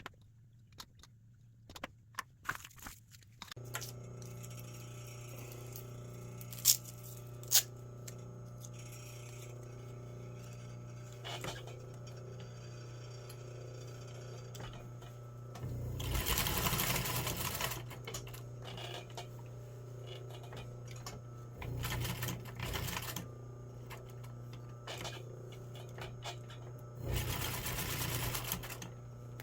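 Sewing machine stitching Velcro pieces onto fabric: a steady motor hum starts a few seconds in, then three short runs of stitching, the longest near the middle and another near the end. Light handling clicks come first, and two sharp clicks follow shortly after the hum starts.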